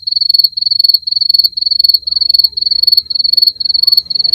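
Insect chirping: a loud, high, rapid trill broken into short chirps about twice a second, starting and stopping abruptly.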